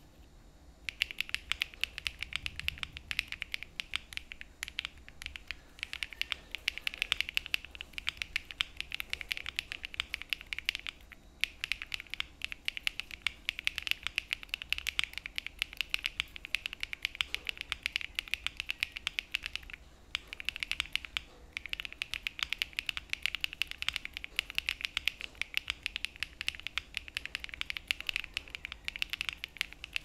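Fast typing on a Jris75 mechanical keyboard with stock HMX Macchiato linear switches, no plate, foam and TX stabilizers: a dense run of key clacks, with brief pauses about 11 and 20 seconds in.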